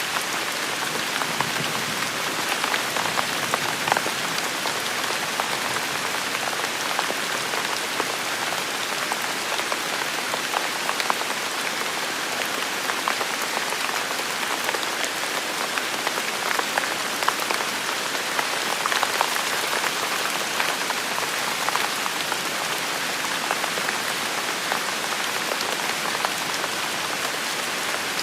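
Steady rain falling on hard surfaces, a constant hiss with many close drops ticking and spattering.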